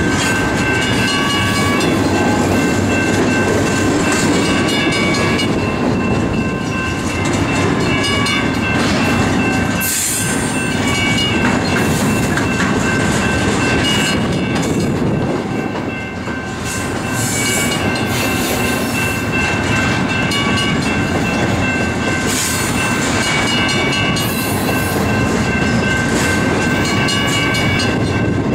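Double-stack intermodal well cars rolling slowly past: a steady rumble of steel wheels on rail, with thin high-pitched metallic squeals that come and go.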